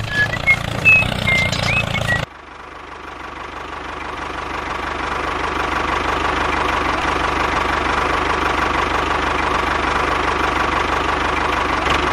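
Engine-like running of a miniature DIY tractor. The sound cuts off suddenly about two seconds in, then swells back up and holds steady. Before the cut, short chirping whistles play over a low hum.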